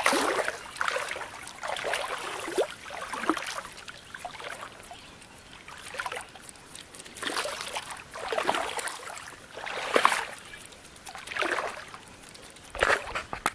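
Shallow creek water sloshing and splashing in irregular surges every second or two, as someone wades through it.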